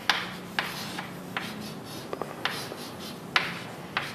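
Someone writing: a string of sharp taps and short scratchy strokes, irregularly spaced, about eight in four seconds.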